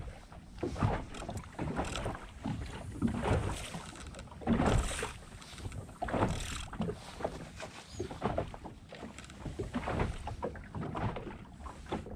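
Water lapping and slapping against the hull of a small inflatable boat in irregular splashes.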